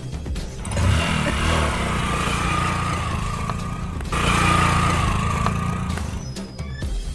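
Small motorcycle engine catching about a second in and revving, then running as the bike pulls away, with a brief dip about four seconds in. Background music plays underneath.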